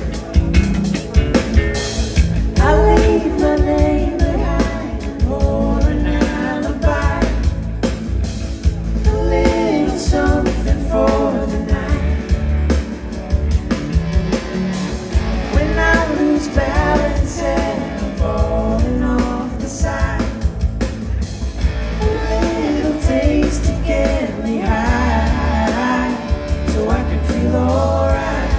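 Live band playing a pop-rock song: singing over electric guitar, bass and drums.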